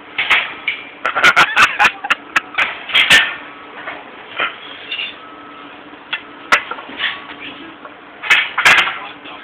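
A series of sharp knocks and clacks, bunched about a second in, once in the middle and again near the end, as a man zip-tied to a metal scaffold tube, with his hammer tied to his arm, struggles against the ties.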